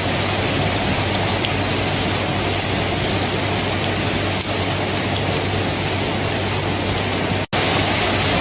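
Steady heavy rain falling, an even rushing hiss with a low steady hum beneath it. It cuts out for an instant about seven and a half seconds in, then resumes.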